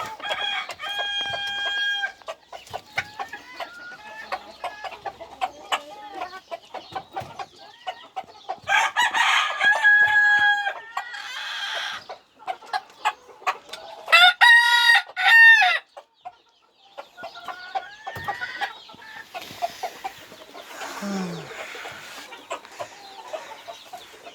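Roosters crowing three times, the loudest crow about two-thirds of the way in, over steady clucking from a flock of chickens.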